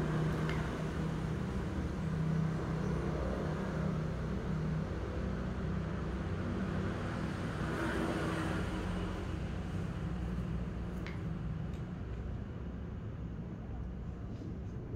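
Air pump pressurising a PCP airgun regulator for a pressure test: a steady low hum with a swell of hissing air about eight seconds in and a single click near the end.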